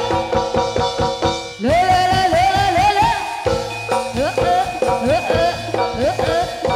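Jaranan gamelan music playing loudly: drum strokes and repeated metallophone notes under a wavering high melody line that glides and trembles for a stretch about a second and a half in.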